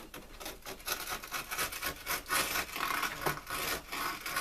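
Small screwdriver scraping along the outside edge of model railway track on fibreboard underlay, working the track loose to lift it. Rapid, uneven rubbing strokes start about a second in and keep going.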